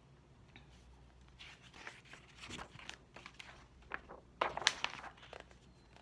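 Paper pages of a large picture book being turned and handled, rustling and crinkling in short uneven scrapes, loudest about four and a half to five seconds in.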